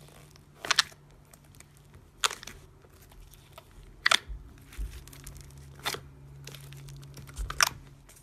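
White fluffy slime packed with foam beads being squeezed and folded by hand, giving about five sharp crackling pops and crunches, one roughly every two seconds.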